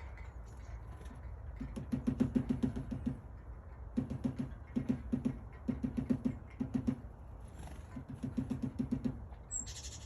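Great spotted woodpecker hammering at wood in repeated short bouts of rapid taps, each bout lasting up to about a second and a half with brief pauses between.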